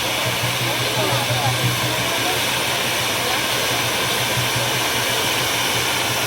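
Steady rushing hiss of hand-held fountain fireworks spraying sparks, holding at an even level throughout, with faint voices under it.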